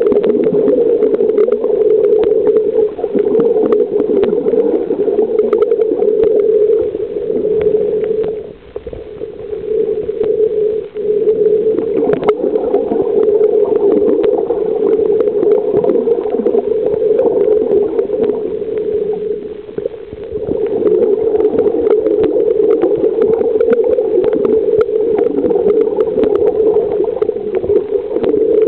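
Muffled underwater noise from a snorkeler's camera held under the sea: a steady low rush of water with scattered faint clicks, dropping away briefly about eight seconds in and again about twenty seconds in.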